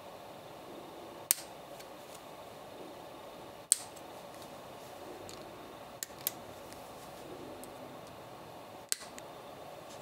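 Side cutters snipping plastic model-kit parts off the sprue: five sharp snips, the loudest about a second in and near four seconds, with a few fainter clicks between.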